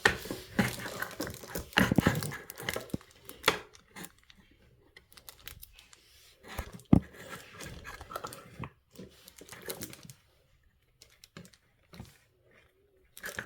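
A plastic water bottle and its drip fitting being handled and adjusted: irregular clicks, taps and crinkles, busier in the first few seconds and sparser after.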